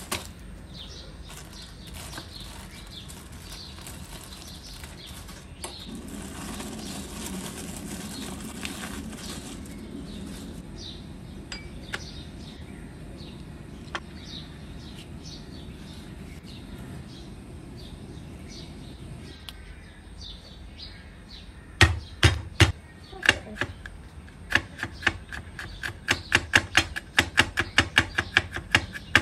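A chef's knife chopping garlic cloves on a wooden cutting board. A few hard strikes come about 22 seconds in, then rapid, even chopping at about four strokes a second near the end.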